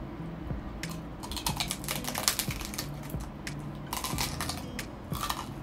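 Crunching bites and chewing of crispy fried pork tail close to the microphone: runs of sharp crackles in several clusters.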